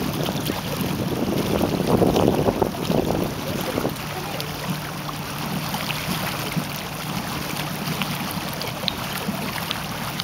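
Engine of the motorboat towing the tube, running at low speed with a steady low hum, with wind noise on the microphone. The noise swells for a few seconds shortly after the start, then settles.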